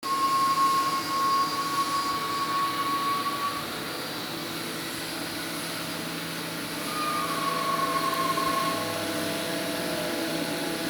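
A small CNC machine with a plastic frame running: a steady motor noise, with a high whine that stops after about three and a half seconds and comes back about seven seconds in, dropping slightly in pitch.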